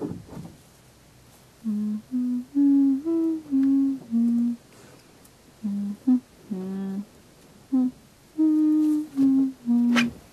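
A person humming a tune in a string of short, steady notes that step up and down in pitch, with a sharp knock near the end.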